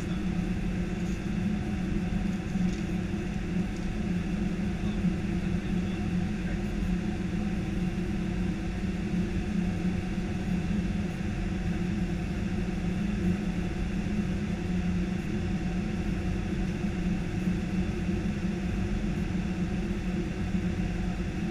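Steady cockpit noise of an Airbus A319 on approach: a constant rush of airflow over a low, even hum.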